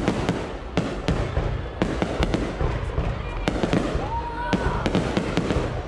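Aerial fireworks display: shells bursting in a rapid, irregular string of sharp bangs, over the murmur of a watching crowd.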